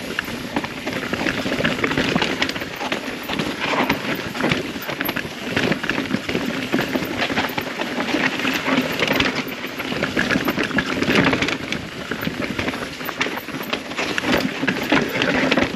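Rocky Mountain Altitude mountain bike descending a rough downhill trail: continuous tyre noise on dirt and rock, with dense rattling and knocking from the chain, frame and suspension over the bumps.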